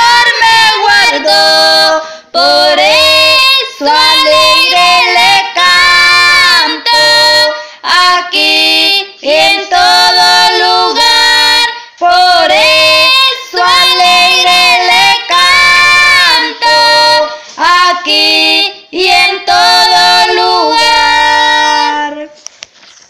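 A high voice singing a Spanish praise song in long sustained notes, stopping about twenty-two seconds in.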